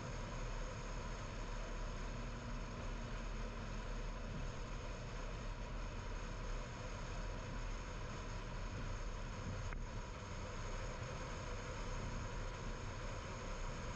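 A car driving along: a steady drone of engine hum and tyre noise on the road.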